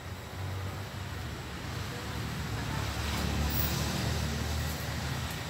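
Road traffic rumble with a low engine hum, swelling as a vehicle passes about three seconds in.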